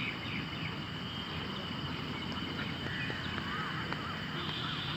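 Outdoor park ambience: a steady noise bed with a thin, steady high whine, and faint chirping calls around the middle.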